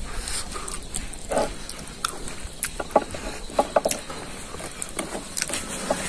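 A man chewing a mouthful of rice and meat close to the microphone, with irregular wet clicks and smacks of the mouth.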